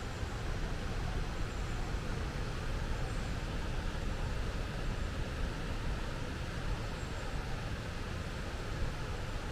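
Steady rush of fast-flowing water in a rocky canyon, an even roar that is heaviest in the low end.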